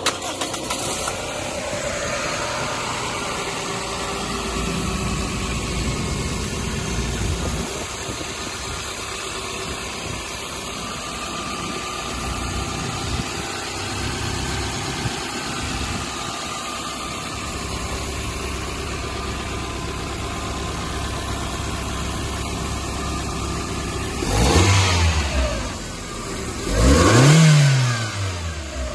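1997 Toyota Tercel's 1.5-litre four-cylinder engine idling steadily, then revved twice near the end, the pitch rising and falling each time.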